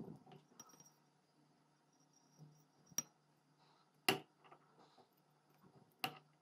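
Four faint, sharp clicks spread over a few seconds, with a few lighter ticks between them, as the bare piston and connecting rod of a Kymco KY SC-10 49cc two-stroke engine are moved by hand on the crankshaft.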